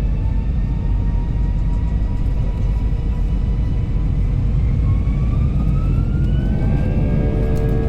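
Airbus A320 jet engines heard from inside the cabin: a steady deep rumble with whining tones that rise in pitch as thrust builds, typical of the engines spooling up for the takeoff roll.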